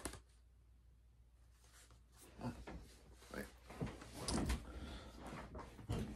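Rummaging: quiet at first, then a scatter of knocks, clicks and rustles of things being handled, with a few dull thumps about four seconds in.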